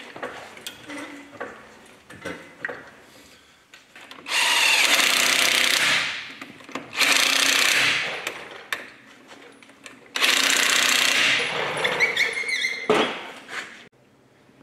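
Cordless impact wrench hammering a truck's wheel nuts tight in three bursts, about four, seven and ten seconds in, each one to two seconds long. Light clinks of the nuts and socket between the bursts.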